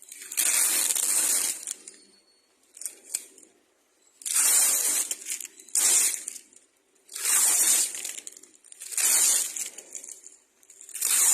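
Adhesive tape being pulled off a roll in a series of about six strokes, each a harsh noisy rip lasting up to a second or so.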